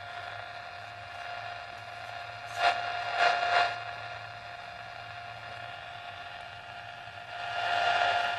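Radio receiver audio of an RX2 antenna noise bridge: a steady buzzing tone over hiss. The hiss swells a few times about three seconds in and again near the end.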